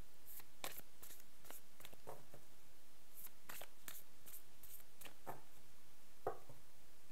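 Faint, irregular light clicks and ticks, about two a second, with a fuller tap near the end.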